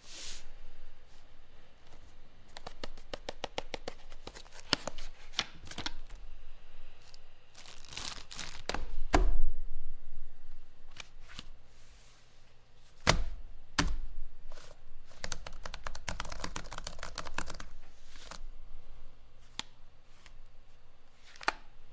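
Unpacking and handling a folding wireless keyboard: packaging tearing and rustling, runs of quick plastic clicks like keys being pressed, and several sharp knocks, the loudest about nine seconds in.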